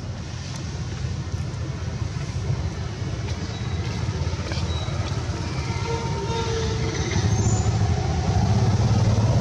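A motor vehicle's engine running with a low rumble, growing louder about seven seconds in.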